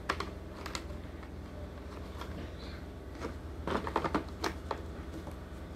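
Scattered light plastic clicks and knocks as a battery charger and its parts are fitted into the moulded compartments of a hard plastic drill case, over a steady low hum.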